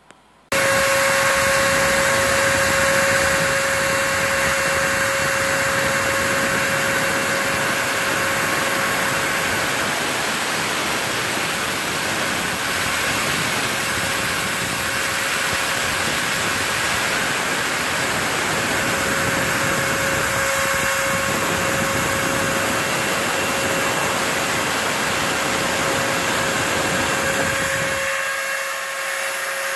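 Router spindle of a home-built CNC mill running at a steady high-pitched whine as it cuts a plaster mold, with a shop vacuum's dust-collection hose running alongside. Both start suddenly about half a second in. Near the end the low rumble drops away while the whine carries on.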